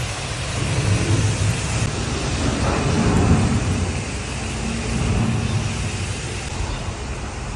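Water spraying from a garden hose onto rice seedlings, a steady hiss, with wind rumbling on the microphone.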